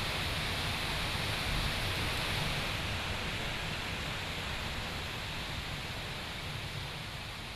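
Wind blowing through forest trees: a steady rushing hiss of moving foliage that grows slowly fainter toward the end.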